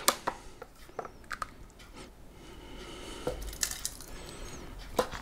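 A utensil scooping thin, soupy mince-and-pumpkin filling out of a kitchen machine's mixing bowl, with soft wet sounds and a few light clinks against the bowl.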